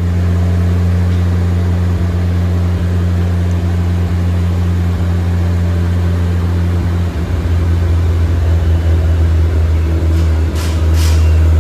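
A car engine running steadily with a low, even drone, its level stepping up slightly twice. There are a few short hisses near the end.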